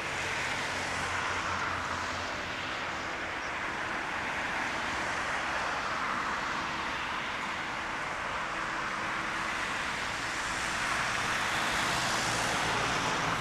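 Airbus A380 jet engines, a steady roar that grows a little louder near the end.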